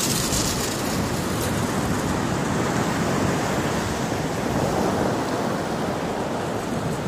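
Steady rushing noise of wind and surf on a shingle beach.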